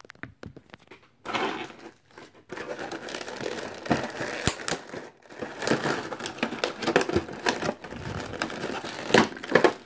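Clear plastic blister packaging crinkling and crackling as hands handle it and pull it apart, in irregular bursts with sharp clicks of the plastic, starting about a second in.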